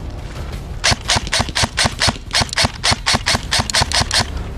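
Airsoft rifle firing a rapid string of shots, about five a second, with sharp clicks. The string starts about a second in and stops shortly before the end.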